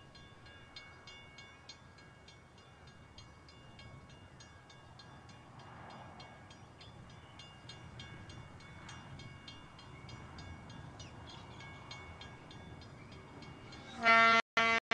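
Distant Brill diesel railcars running along the line, a faint low rumble. Near the end the railcar's horn sounds loudly, a steady pitched note briefly broken twice.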